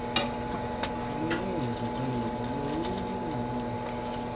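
Microwave oven running with a steady hum, with scattered small pops and clicks. A voice hums or murmurs faintly in the middle.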